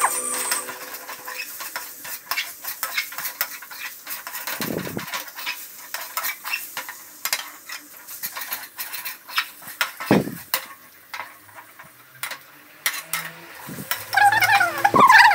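A flat metal spatula scraping and clinking against a metal kadai as diced potatoes and onions are stirred, with oil sizzling under it. Near the end a louder wavering pitched sound comes in.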